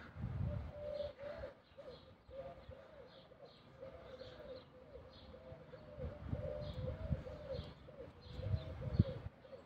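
A dove cooing over and over in a steady series of rising-and-falling coos, with small birds chirping faintly above it. Low rumbling bumps on the microphone come and go, the sharpest near the end.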